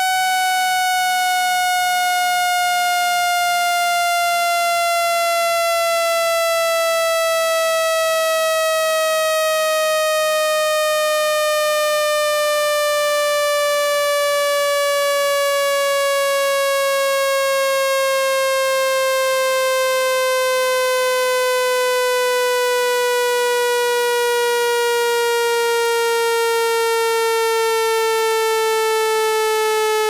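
Loud, buzzy electronic tone gliding slowly and steadily down in pitch: a water-eject cleaning sound, played at full volume to vibrate water droplets out of a phone's speaker and charging port.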